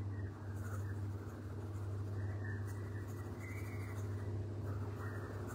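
Derwent Chromaflow coloured pencil shading on drawing paper to fill a colour-chart swatch, with a steady low hum underneath.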